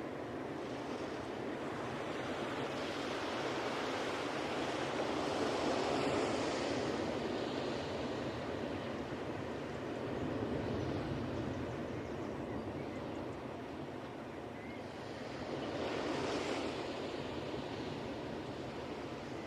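Ocean waves breaking on a beach: a continuous rush of surf that swells and ebbs three times as the waves come in.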